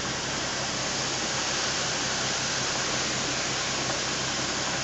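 Steady roar of hurricane wind and Gulf surf, an even dense hiss that does not let up, with a low steady hum underneath.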